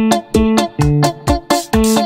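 Instrumental bachata backing track in A minor: plucked guitar chords over percussion keeping a steady beat.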